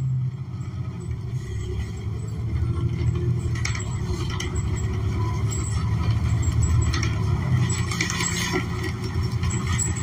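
Inside a New Flyer XN40 transit bus under way: the Cummins Westport ISL G natural-gas engine and drivetrain running with a steady low drone. Short interior rattles come through a few times, around four, seven and eight seconds in.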